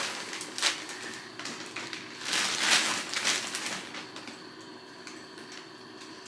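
Packaging in a shipping box rustling and crinkling as it is handled, in bursts, loudest from about two to three and a half seconds in.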